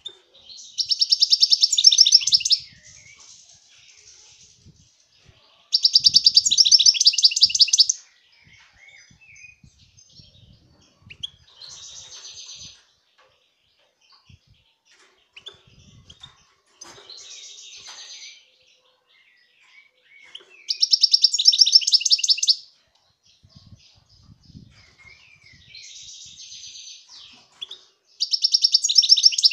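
European goldfinch (chardonneret) singing: four loud, fast trilled phrases of about two seconds each, with quieter twittering phrases in between.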